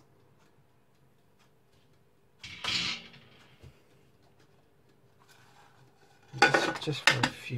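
Kitchen handling noise: a short scrape about two and a half seconds in, then near the end a burst of clinks and knocks as a plate tips a cooked pizza into the empty nonstick bowl of a multi cooker.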